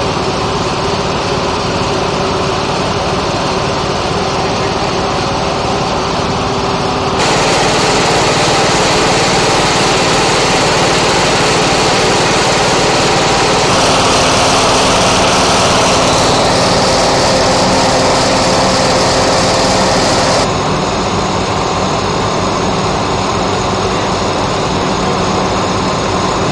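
Small gasoline engine of a portable firefighting ventilation fan running steadily at speed, with the blower's rush of air. It is louder from about seven seconds in until about twenty seconds in.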